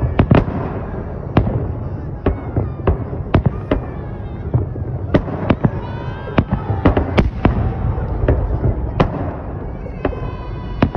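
Aerial fireworks shells bursting overhead in quick, irregular succession: sharp bangs, several a second at times, over a continuous low rumble.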